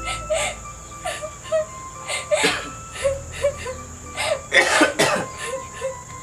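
A girl sobbing in short, repeated catches of breath, with soft background music underneath.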